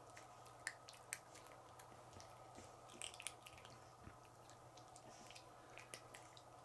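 Pug puppy chewing and gnawing a plush toy, faintly: scattered wet clicks and smacks, with a small cluster about three seconds in, over a low steady hum.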